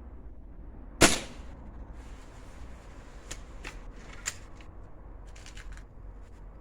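A single shot from a Remington Express XP .22 break-barrel air rifle about a second in: one sharp crack with a short ring. After it come several light clicks and ticks.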